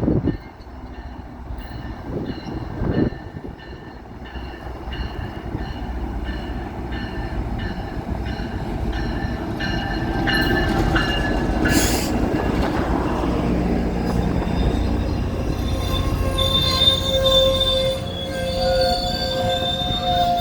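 GO Transit commuter train pulling into a station: the rumble of the rolling cars grows louder, with a regular ticking through the first half and steady high wheel and brake squeal in the last few seconds as it slows.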